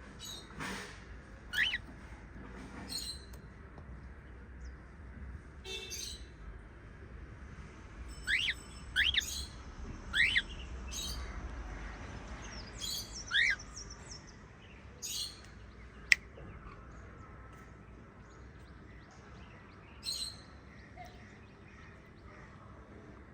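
Small pet parrots calling in scattered short chirps and squawks, several of them quick rising whistles, with one sharp click about two-thirds of the way through.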